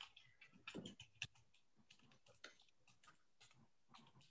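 Faint computer keyboard typing: light, irregular clicks.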